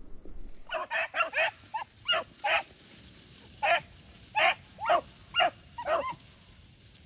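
Hunting beagles giving tongue: about a dozen short, high barks in two quick runs.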